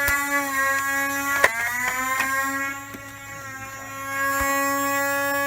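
Motorized NERF blaster's flywheel motors whining steadily. About one and a half seconds in, a dart fires with a sharp click, and the whine dips in pitch and climbs back up. It fades for a moment after the middle and comes back up near the end.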